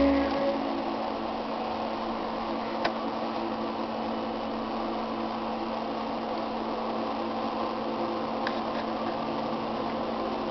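Steady mechanical hum of an SWF multi-head embroidery machine, with a faint click twice.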